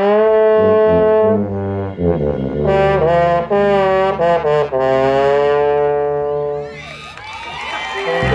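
Marching band brass section playing sustained, loud chords that shift a few times, fading out about six and a half seconds in. A rising swell of sound then builds toward the end.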